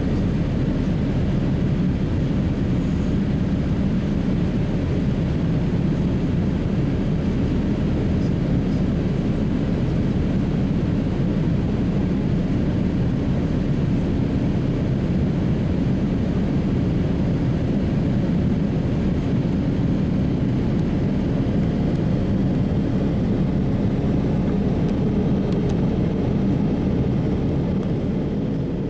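Steady engine and airflow noise inside the cabin of a Boeing 787 climbing after takeoff, a low even rumble. It fades out near the end.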